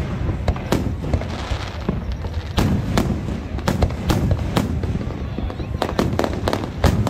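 Fireworks display: aerial shells bursting overhead in quick, irregular succession, with sharp bangs and crackling over a continuous low rumble.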